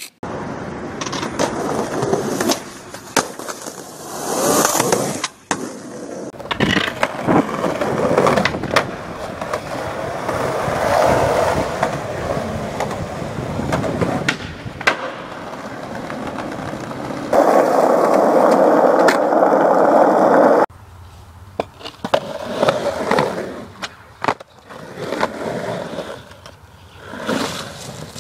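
Skateboard wheels rolling over concrete and pavement, with sharp clacks of the board hitting the ground, across several cut-together clips. There is a stretch of steady, louder rolling noise some two-thirds of the way through.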